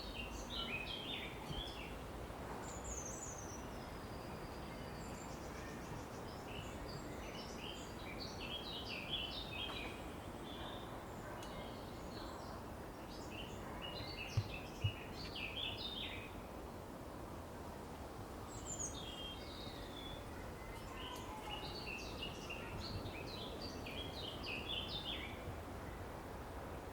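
Outdoor ambience of songbirds singing in bursts of chirps over a steady low background rumble, with two short low thumps about halfway through.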